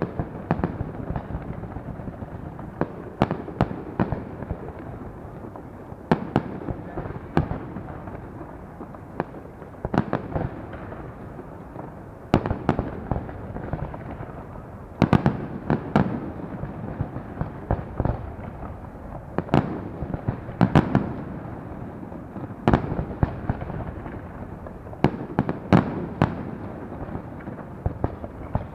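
Fireworks display: a run of sharp bangs and crackles at uneven intervals, often several close together, over a continuous rumble of shell bursts.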